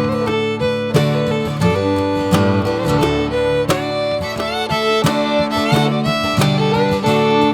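Bluegrass-style instrumental music: fiddle playing over plucked acoustic guitar.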